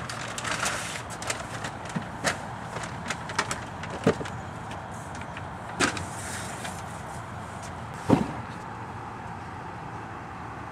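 Cardboard boxes being lifted, set down and slid onto a metal cart and into a minivan's cargo area: scattered knocks and thuds, the loudest about six and eight seconds in, with fewer after that.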